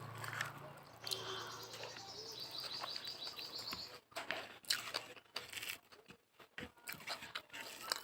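Eating sounds: chewing and sharp mouth clicks from a mouthful of rice and fried flat beans, mostly in the second half. A bird chirps in a quick high series about two to four seconds in.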